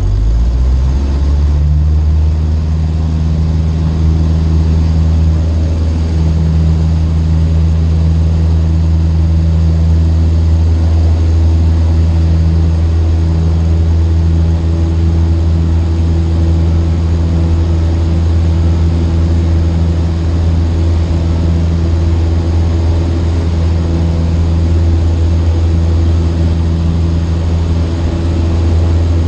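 Cessna 152's four-cylinder Lycoming engine and propeller droning steadily, heard inside the cockpit. The pitch rises slightly in the first second or two, then holds.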